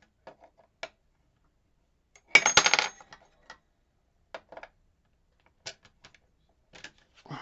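Small metal lock parts clicking as a Robur lock is gutted with a follower. About two and a half seconds in there is a loud burst of clattering as loose pins and springs spill out, with scattered light clicks before and after.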